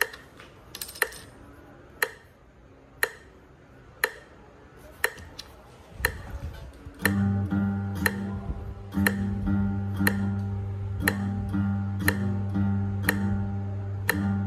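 Metronome clicking steadily about once a second. About seven seconds in, an acoustic guitar comes in with a repeated rhythm pattern of plucked notes over a low bass note, in time with the clicks.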